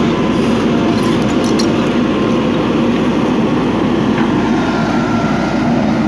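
JCB 3DX backhoe loader's diesel engine running steadily under load as the backhoe digs and lifts soil out of a trench.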